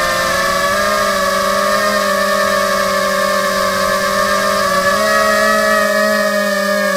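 FPV drone's electric motors and propellers whining at a fairly steady speed, several motor tones sounding close together; the pitch steps up slightly about five seconds in.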